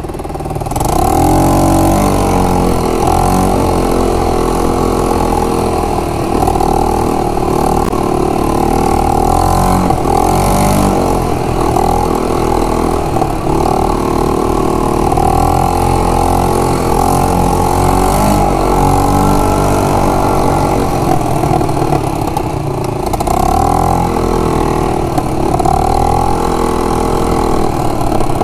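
Yamaha Grizzly 125 quad bike's small single-cylinder four-stroke engine running under way, getting louder about a second in. Its pitch then rises and falls repeatedly as the throttle is opened and eased off.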